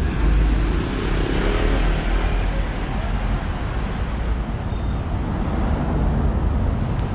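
City road traffic: a steady wash of cars driving along a busy multi-lane street, with a low rumble underneath.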